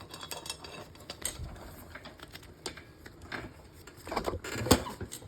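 Motorcycle drive chain clicking and rattling as it is worked back onto the rear sprocket by hand: irregular light metal clinks, with one sharper click near the end.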